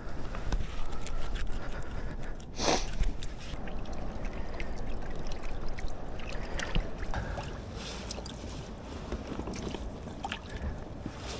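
Wind rumbling on the microphone over wash from the sea on a rocky shore, with scattered clicks and knocks of fishing gear being handled and one brief loud rush about three seconds in.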